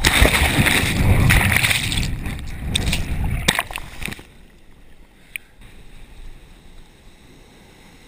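Breaking wave surging and splashing over a GoPro held at the water's surface in shorebreak: loud churning water for about four seconds, then it drops suddenly to a much quieter wash, with one small tick a little after five seconds.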